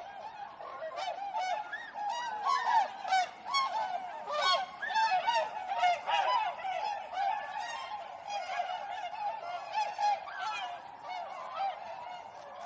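A flock of swans calling together: many short, overlapping calls in a dense, continuous chorus, with no pause.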